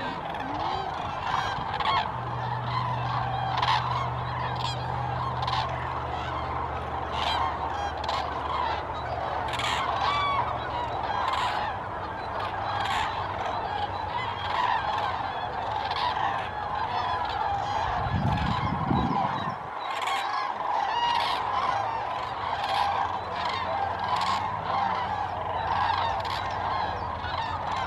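A large flock of common cranes calling together in a dense, continuous chorus, with greylag geese honking among them. A low steady hum runs underneath, and a brief low rumble comes about two-thirds of the way through.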